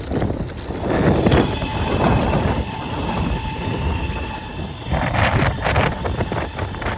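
Wind buffeting the microphone over the rumble of an Ecomobl ET electric skateboard being ridden. A thin, steady whine runs from about a second in until it cuts off around five seconds in.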